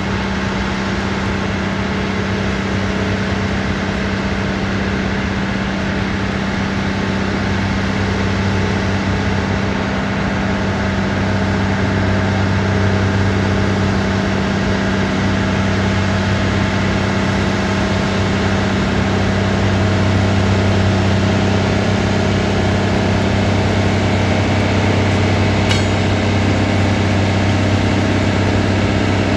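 Diesel engines of a Loram SBC-35 shoulder ballast cleaner running as the rail maintenance machine creeps past: a steady low drone that grows a little louder as it draws nearer.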